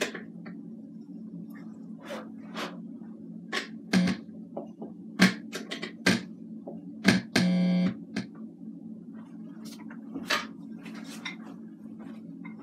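Scattered clicks and knocks of hands fiddling with the cables and module of an Alesis electronic drum kit, over a steady low hum. A short buzzing tone sounds once, about seven and a half seconds in.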